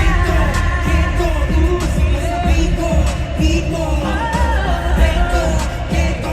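Live pop performance: male voices singing over a backing track with heavy bass, through concert loudspeakers.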